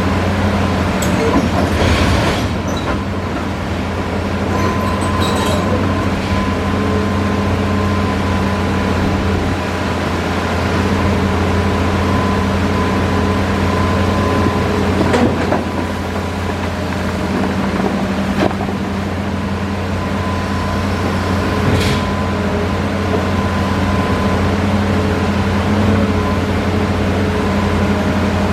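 Hitachi Zaxis excavator running steadily at working revs, a low engine hum with a thin steady whine over it. A few sharp knocks break in now and then.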